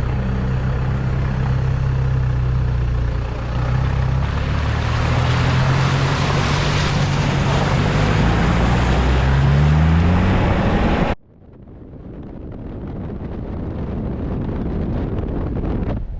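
Four-wheel drive under way: steady engine note under road and wind rush, the engine note rising about nine seconds in. About eleven seconds in the sound cuts off abruptly, and a quieter rumble builds up again.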